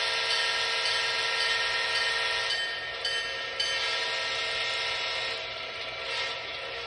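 Horn of an MTH HO-scale GP38-2 diesel model played by its Proto-Sound 3.0 DCC sound decoder through the small onboard speaker: one long, steady multi-note horn blast, dipping a little in level about five seconds in.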